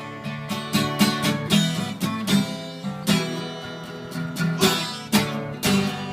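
Acoustic guitar strummed in a steady rhythm, about two strums a second, with no singing.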